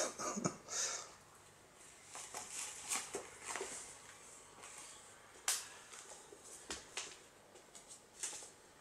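Toilet paper rustling and tearing in irregular bursts as a kitten claws and bites at the roll, with scattered sharp taps; the loudest tap comes about halfway through.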